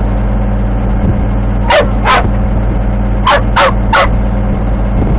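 A dog barks five times, two barks and then three, each bark dropping in pitch, over the steady running of a heavy machine's engine.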